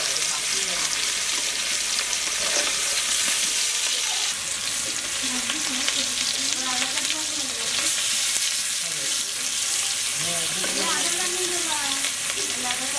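Hilsa fish steaks frying in hot oil in an aluminium kadai: a steady sizzle, with a spatula scraping and turning the pieces in the pan.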